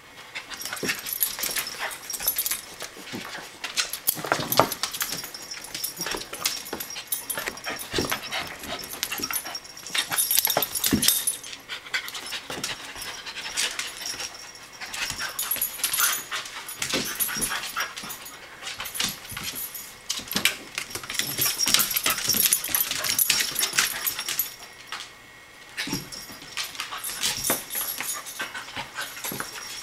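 A corgi and a cairn terrier play-wrestling on a hard vinyl floor: irregular scuffling and many small clicks of claws, with panting, coming in bouts that swell and ease off.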